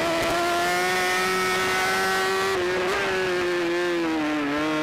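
Racing superbike engine heard onboard at high revs under load: a steady, sustained note that climbs slightly, wavers briefly about halfway, then eases gradually lower, with a small dip near the end. A steady rush of wind noise runs under it.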